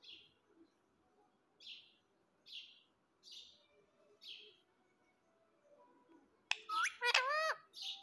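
Indian ringneck parakeet giving short, high chirps a little under once a second, then a loud burst of whistled calls that rise and fall in pitch about seven seconds in.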